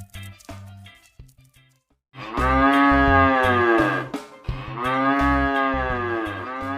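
Cow mooing: starting about two seconds in, three long drawn-out moos one after another, each rising and then falling in pitch, over a light music backing.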